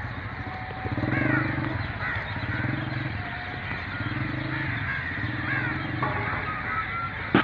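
A low engine drone that pulses, swelling and fading about every second and a bit, with birds chirping over it.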